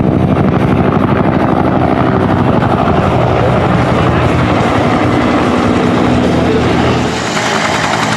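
Bell UH-1 Huey and AH-1 Cobra helicopters flying, their two-bladed main rotors beating in a fast, steady rhythm. The sound eases slightly about seven seconds in.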